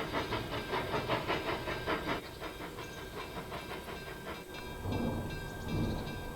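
Steam locomotive chuffing in a quick, regular beat of about six strokes a second, fading after a couple of seconds into a steady hiss.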